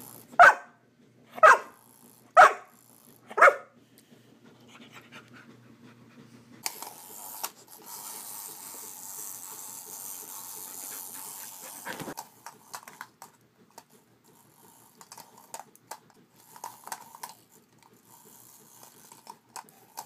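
Australian Shepherd barking four times, about one bark a second. A few seconds later comes a steady hiss lasting about five seconds, followed by scattered soft clicks and rustles.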